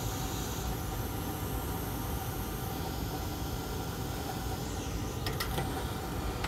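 Hot air rework station blowing a steady hiss of air while desoldering a chip from a laptop board; the hiss changes in tone about a second in. A few light clicks come near the end.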